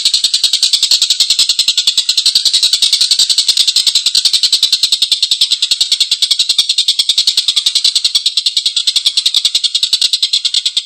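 Tengkek buto kingfisher giving its long, harsh cackling call: a rapid, unbroken rattle of about ten notes a second.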